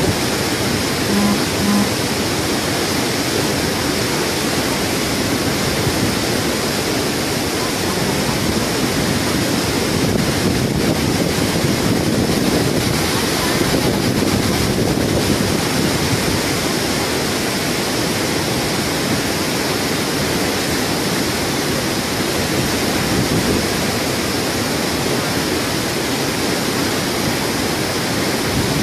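Steady rush of a fast-flowing, turbulent muddy river in flood, an even roar of churning water.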